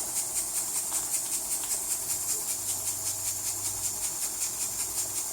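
Small homemade steam engine, built from Jensen toy steam engine parts, running on steam from a cross-tube boiler. It gives a fast, even beat of exhaust puffs over a steady steam hiss.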